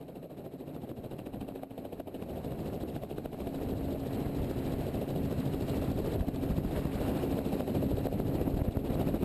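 Small two-bladed helicopter's engine and rotor running, the sound growing steadily louder as it lifts off and turns, with a rapid rotor chop and a steady hum coming in a few seconds in.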